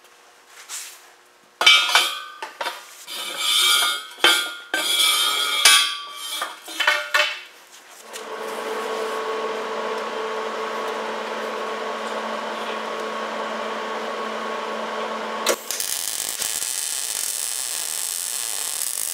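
Steel parts of a vise stand clanking and knocking several times, with a ringing edge, then a steady hum for several seconds. About 15 s in, a MIG welding arc strikes and crackles steadily to the end.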